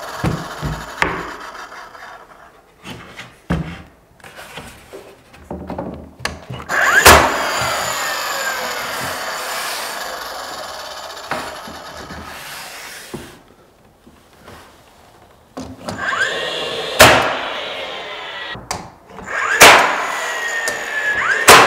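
Cordless 15-gauge finish nailer driving nails through pine door casing into a wall stud: four sharp shots, each followed by the tool's motor winding down with a falling whine. A few light knocks come first as the casing board is set in place.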